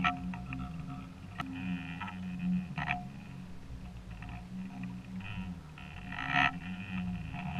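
Muffled underwater sound: a steady low hum with short rasping bursts several times, the loudest about six seconds in.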